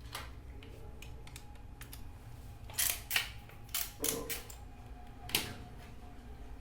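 Irregular sharp clicks and light taps from small hard objects being handled, with a louder cluster about three to four seconds in and one more near five seconds, over a steady low hum.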